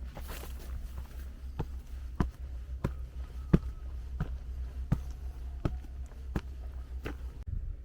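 Footsteps on a hard surface at an even walking pace, about one sharp step every 0.7 seconds, over a steady low rumble.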